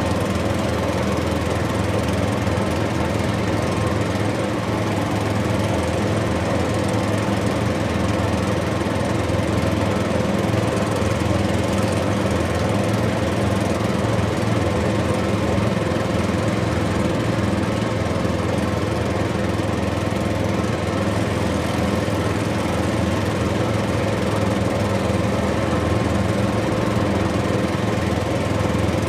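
Heavy diesel engine running steadily, an even low drone that holds the same pitch throughout.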